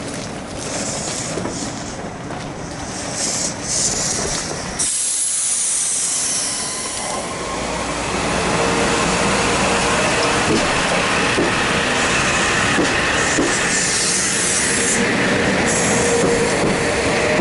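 Metro-North M8 electric multiple-unit train pulling away: a hiss of air about five seconds in, then the whine of its traction motors and the wheel noise build and rise slowly in pitch as it gathers speed.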